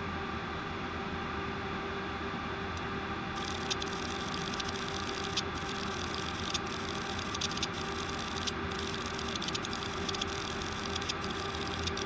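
Old 160GB Seagate hard drive running under power with a steady hum. From about three seconds in it makes rapid, irregular ticking like an old typewriter, a fault traced to slight contamination on the head assembly.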